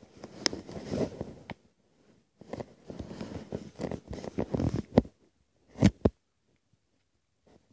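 Handling noise on a handheld camera's microphone: rustling and rubbing as it is moved about, in two stretches with a short pause between, then two sharp knocks about six seconds in.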